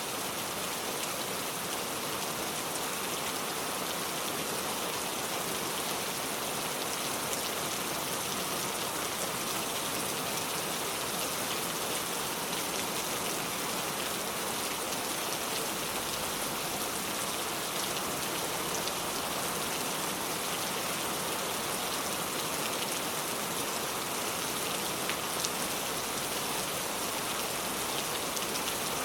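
Steady rainfall: an even hiss of rain with faint scattered drop ticks, unchanging throughout.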